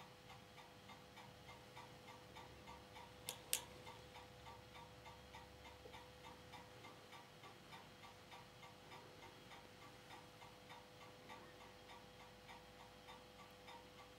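Ania 5 filmstrip projector running with a faint steady hum under a regular ticking of about two ticks a second. About three and a half seconds in come two sharp clicks close together, fitting the filmstrip being advanced to the next frame.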